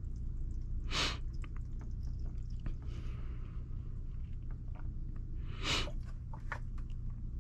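Windshield washer fluid draining out of a Subaru Impreza GC8's washer reservoir into a catch bottle, with scattered small wet clicks. Two short breathy bursts of noise stand out, about a second in and again just before six seconds, over a steady low hum.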